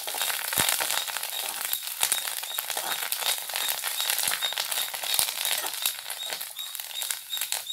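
Grated coconut with curry leaves and mustard seeds frying in oil in a kadai, crackling and sizzling as it is stirred to roast it reddish.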